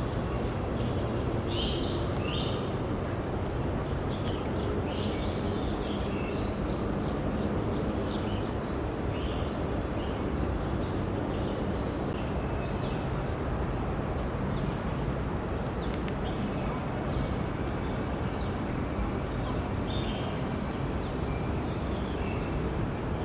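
Birds giving short, scattered chirps over a steady low rumble.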